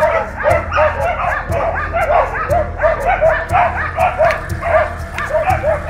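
A pack of hunting laikas barking hard and without a break, several overlapping barks a second. The dogs are baying a bear that has holed up in a dense thicket.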